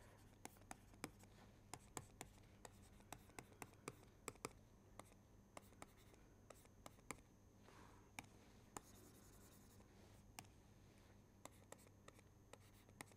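Stylus writing on a tablet: a faint, irregular run of small taps and scratches, about two or three a second, over a low steady hum.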